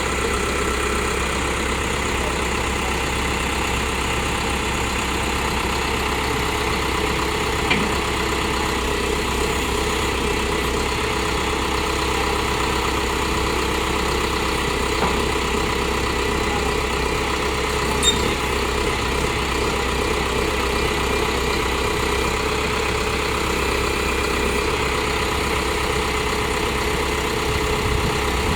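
Liugong 764A backhoe loader's diesel engine idling steadily, with two faint brief clicks along the way.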